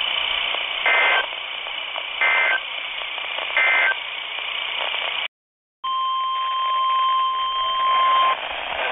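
NOAA Weather Radio through a handheld receiver's speaker over steady radio hiss: three short, raspy digital data bursts about 1.3 s apart, the EAS/SAME end-of-message code closing a flash flood warning. After a sudden half-second dropout, a steady single-pitch alert tone sounds for about two and a half seconds, the 1050 Hz weather alert tone that opens the next warning.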